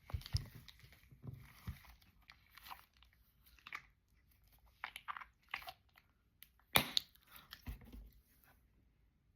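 Frozen squishy dumpling toy being squeezed by hand, its slushy, half-frozen filling making irregular crunches and crackles, with one sharp crack about seven seconds in.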